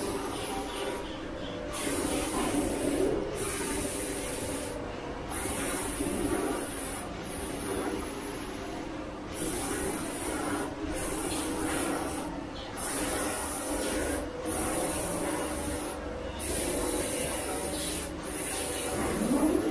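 Fully automatic crystal-pendant-making machine running, with a steady hum and a high hiss that cuts out briefly about every two seconds in a regular cycle. A rising whine comes near the end.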